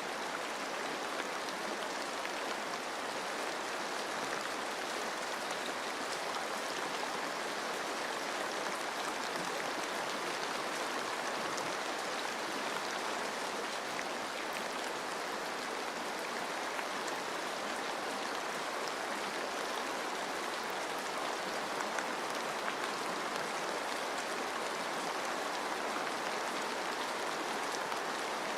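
Steady rain falling on forest foliage, with a dense patter of drops and a continuous rushing wash of running water.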